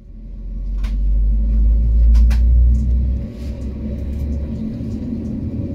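Airbus A321neo cabin during the takeoff roll: a loud low rumble that builds, then eases about three seconds in, with scattered rattles and clicks.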